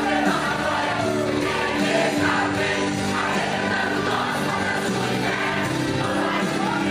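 A youth choir of girls and boys singing a gospel song together over instrumental accompaniment, at a steady level.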